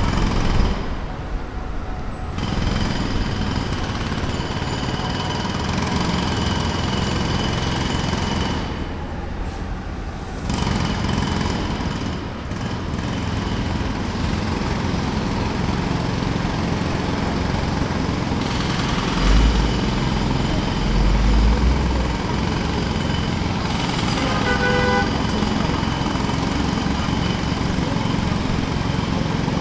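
Jackhammer hammering steadily at a rapid rate, easing off briefly twice early on. A deep low thump comes around two thirds of the way through, followed shortly by a short pitched tone.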